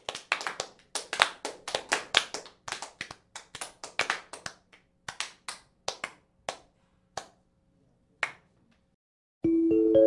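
A small group clapping by hand, irregular and thinning out until it stops about eight seconds in. Near the end a chime begins, its notes coming in one after another, each higher than the last, and ringing on.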